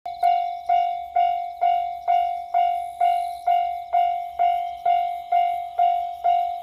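Japanese railway level-crossing warning bell ringing: a steady ding repeated about twice a second, each strike fading before the next.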